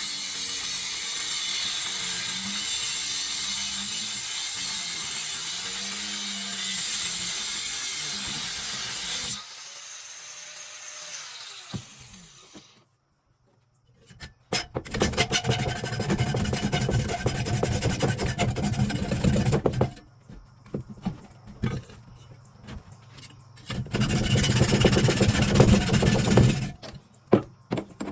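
Power grinder grinding the steel of a leaf-spring knife blank. A steady hissing grind with a wavering motor pitch runs for about nine seconds, then winds down and stops. After a short silence come two more bouts of rougher, choppier grinding.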